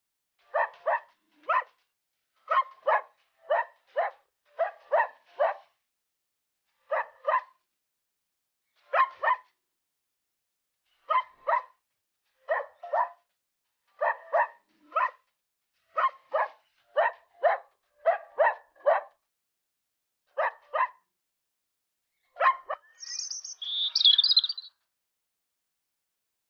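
A dog barking repeatedly in short bursts of two or three barks, with brief pauses between the groups. Near the end a bird chirps briefly in a higher pitch.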